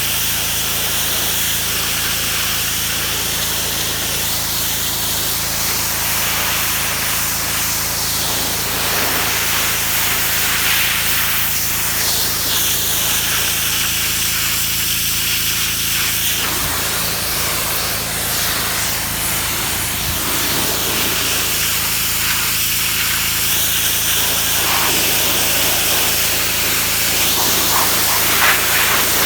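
Pressure washer running: a steady engine hum under the continuous hiss of the water spray.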